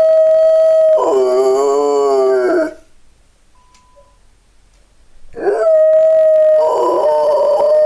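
Rottweiler howling in long drawn-out howls, some held on one steady note and some wavering in pitch. A quiet pause of about two and a half seconds falls in the middle.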